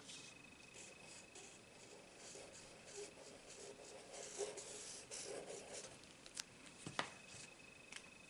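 Felt-tip pen writing on paper: a run of soft, quick scratchy strokes, faint, followed by a single sharp click about seven seconds in.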